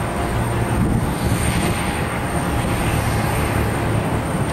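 Airbus A310's twin jet engines running at taxi power, heard from a distance: a steady rumble with a thin, steady high whine over it.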